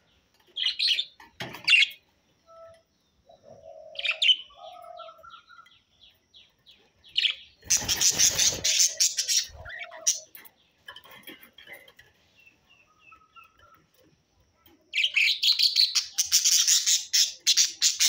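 Budgerigars chirping and warbling in short scattered calls and small rising whistles. There is a loud burst of chatter about eight seconds in and a longer run of dense warbling chatter over the last three seconds.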